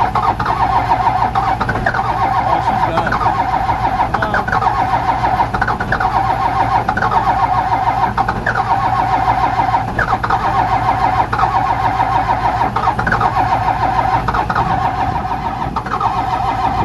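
The Cummins diesel of a Dodge Ram W250 being cranked by its starter without firing: one long, unbroken crank, a steady whine with a brief rise about once a second. The engine is cold-soaked, its oil thick as molasses in the cold, so it turns over but won't catch.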